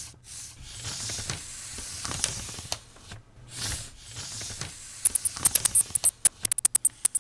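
Chalk scraping across a blackboard in quick strokes as lines are drawn, then from about five seconds in a fast run of sharp electronic clicks and short high glitchy ticks.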